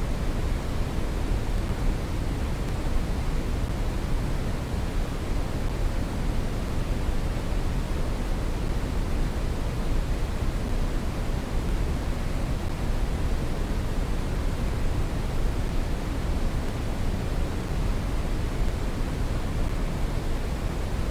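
Synthetic brown noise: a steady, unchanging hiss weighted heavily to the low end, like a deep rumble with softer highs.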